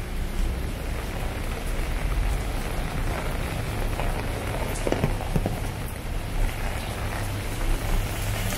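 Steady rain falling on wet pavement, with a low, steady rumble of road traffic underneath and a few short knocks about five seconds in.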